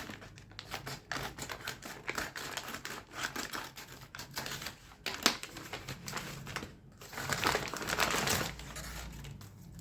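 Delivery packaging being handled and opened by hand: a rapid run of small clicks and taps with crinkling, and a louder stretch of crinkling about seven to eight and a half seconds in.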